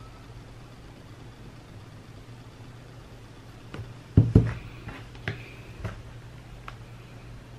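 Two loud knocks on a wooden desk about four seconds in, then a few lighter clicks and taps as things on the desk are handled, over a steady low hum.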